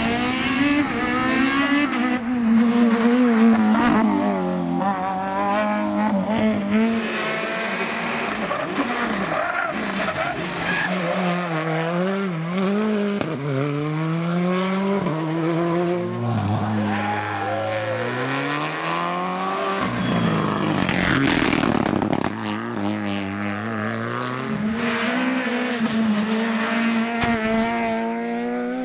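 Rally car engine driven hard, its revs climbing and dropping again and again through quick gear changes and lifts, with tyre squeal. A brief loud rushing noise comes about two-thirds of the way through.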